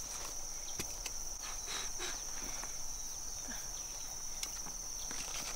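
Insects drone in a steady high tone, with scattered short knocks and scrapes of a machete blade digging into dry soil.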